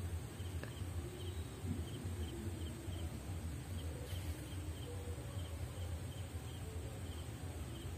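Quiet background with a steady low hum and a faint, evenly repeated high chirping from a small creature, a few chirps a second.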